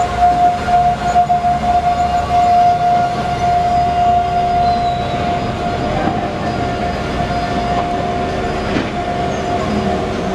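A heavy machine running under load: a steady engine rumble with a steady high whine on top.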